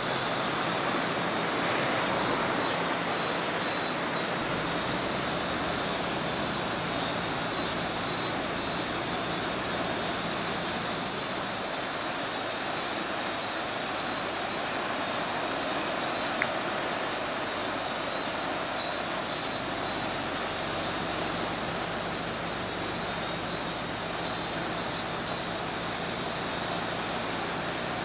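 Steady rush of a swollen, muddy river in flood, fast water running high after heavy rain.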